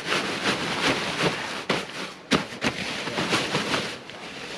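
Irregular rustling and scraping from gear being handled, with a few sharper crackles.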